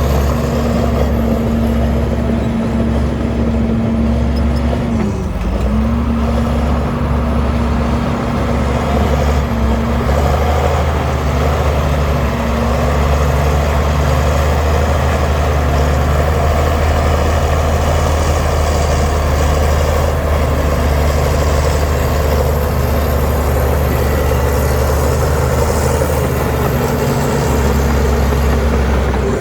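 Heavy diesel engine of earthmoving machinery running steadily under load, its pitch dipping briefly about five seconds in.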